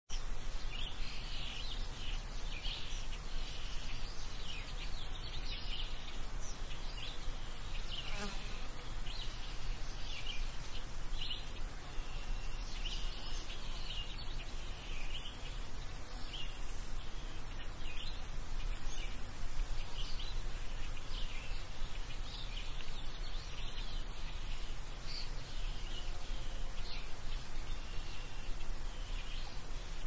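Countryside ambience: many short, high chirps from small birds keep coming at irregular intervals over a steady low background rumble, with a single brief click about eight seconds in.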